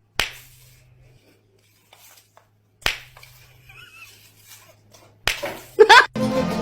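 Three sharp smacks, about two and a half seconds apart, then a brief rising squeal near the end.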